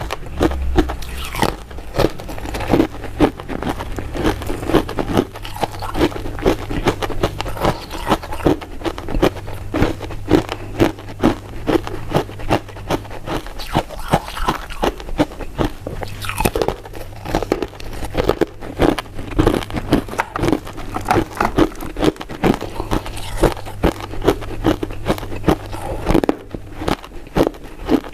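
Close-miked eating of soft, powder-coated mint sweets: biting and chewing with crunchy, clicky mouth sounds, the loudest bites coming about twice a second.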